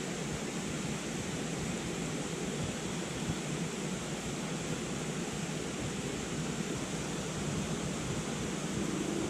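River rapids rushing steadily, an even wash of water noise that does not change.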